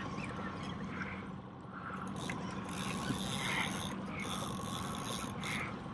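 Conventional fishing reel being worked by hand, a fast mechanical ratcheting and clicking in bursts, over the steady hum of an outboard motor.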